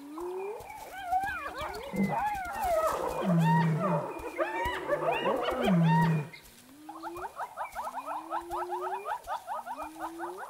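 Spotted hyenas calling around a kill: for about six seconds a loud, chaotic clamour of whoops and squeals with low growls mixed in, then repeated rising whoops over a fast run of high giggling notes.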